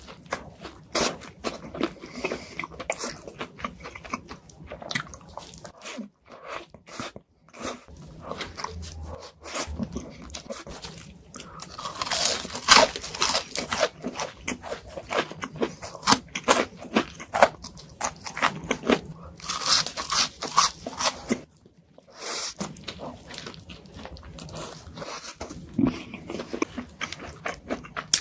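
Close-miked eating for ASMR: crunchy bites and chewing, with a rapid run of crackling crunches about halfway through and another toward the end.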